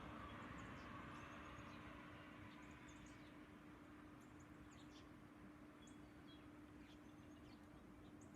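Faint high chirps and chips of small songbirds, many short calls scattered throughout, over a steady low hum. A rushing noise fades away over the first couple of seconds.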